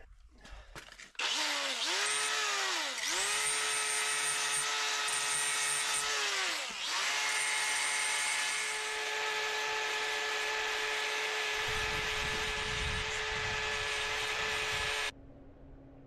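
Handheld power grinder spinning up about a second in and running against the steel of a skid steer's broken hydraulic-ram mount, cleaning up the cracked weld before it is re-welded. Its whine sags and recovers under load, eases off briefly around seven seconds in, and cuts off just after fifteen seconds.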